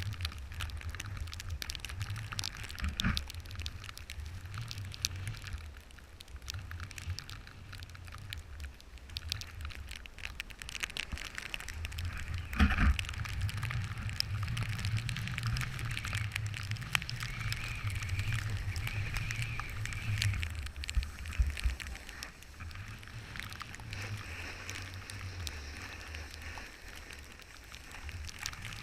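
Wind buffeting a GoPro Hero3 action camera's microphone in gusts, under a dense crackle of snow and board noise, with a sharper knock about halfway through.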